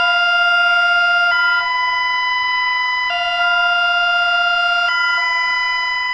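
Emergency alert alarm tone: a steady electronic two-tone signal that alternates between a lower and a higher pitch about every 1.8 seconds, with no glide between them.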